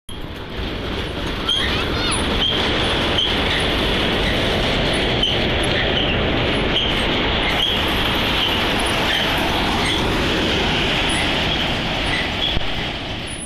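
Small wheels under a corrugated sheet-metal cabin rolling over asphalt as it is pushed along: a steady loud grinding rumble, with a short high squeak repeating a little more than once a second.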